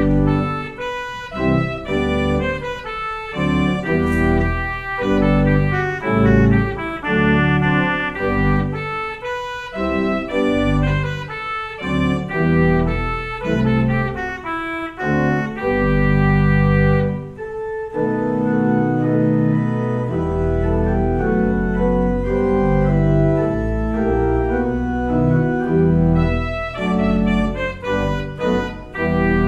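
Organ playing the postlude: full chords over a deep pedal bass, with quick-moving notes at first, longer held chords from a little past halfway, and livelier notes again near the end.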